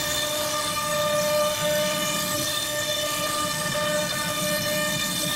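CNC router spindle running with a steady high whine while its end mill cuts into a walnut board, over a rough hiss from the cut.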